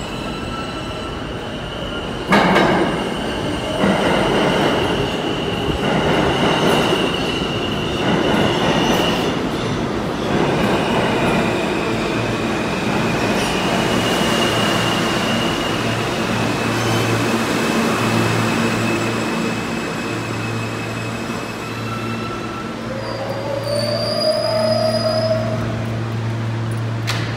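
R160 subway train pulling into the station and braking to a stop: steel wheels squeal in a steady high pitch, with a string of clacks over the rail joints as the cars roll in. Once the train has stopped, a steady low hum from the cars' equipment is left.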